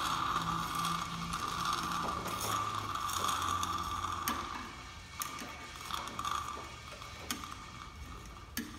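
Powered fluid extractor sucking brake fluid out of a clutch master cylinder reservoir through a thin tube: a steady running sound over a low hum that fades out about halfway through, followed by a few scattered sharp clicks.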